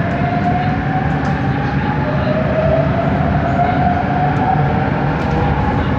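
Bombardier Innovia ART 200 metro train running, its linear induction motors whining over a steady low rumble. The whine rises in pitch, drops back about two seconds in and climbs again as the train picks up speed.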